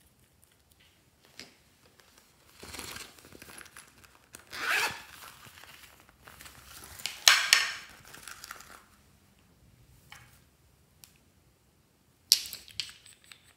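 A zippered fabric cosmetic pouch being unzipped and handled, in several rustling, rasping bursts, with small foam beads shifting inside. A sharp click near the end as a nail polish bottle is opened.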